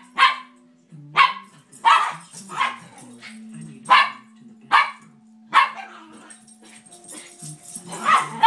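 Small dogs barking in play: about ten short, sharp barks at uneven spacing, roughly one or two a second, over a steady low hum.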